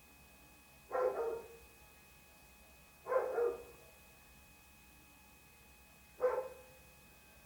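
A dog barking: three single barks, a couple of seconds apart, over a faint steady background.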